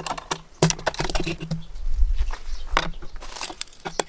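Clicks and light metallic clattering as the drilled aluminium power-supply mounting plate is unclamped from a G-clamp and lifted and handled on the work board.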